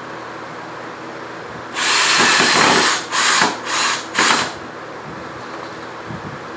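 Power drill running in one burst of just over a second, then three short bursts in quick succession.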